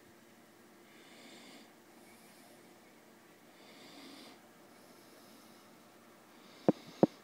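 Slow breathing close to the microphone, a soft hiss about every second and a half, then two sharp clicks in quick succession near the end, the loudest sounds.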